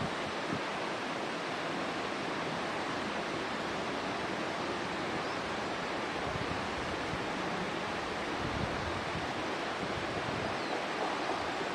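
Steady, even rushing outdoor background noise, with faint low wind buffeting on the microphone about six to nine seconds in.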